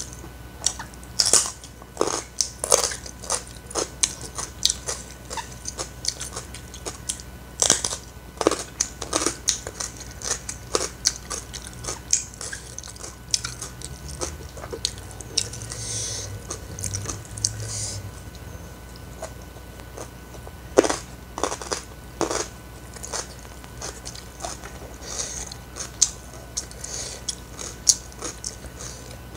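A person eating close to the microphone: crisp crunchy bites and wet chewing at an uneven pace, with a brief low hum about halfway through.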